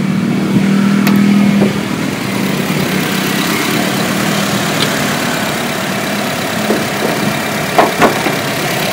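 Honda Mobilio's 1.5-litre four-cylinder petrol engine idling steadily, a little louder in the first couple of seconds. A few light knocks come from the bonnet being lifted and propped open.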